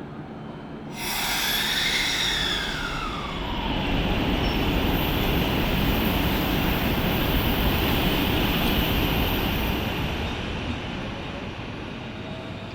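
Electric train running past: a sudden rush of noise about a second in, a whine that falls in pitch as it goes by, then several seconds of steady wheel-on-rail rumble that fades near the end.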